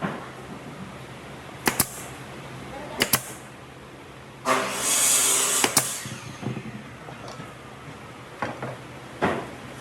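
Workshop sounds while working wood: scattered sharp knocks of wood and tools, several in pairs, and a louder hissing burst lasting about a second and a half near the middle.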